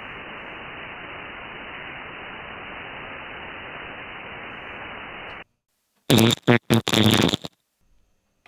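Receiver static from an HF transceiver on 40 meters, a steady hiss cut off above a narrow band, stops abruptly about five and a half seconds in as the rig keys up to tune. Half a second later a loud buzz comes in several short chunks for about a second and a half: RF interference getting into the shack's audio while transmitting.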